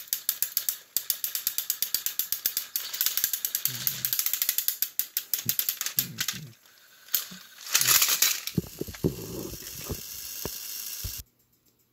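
Motorised Thomas & Friends toy engines pushing against each other on plastic track, their gears clicking rapidly and evenly, about seven clicks a second. The clicking stops about six and a half seconds in, followed by rustling and knocking, and the sound cuts off suddenly near the end.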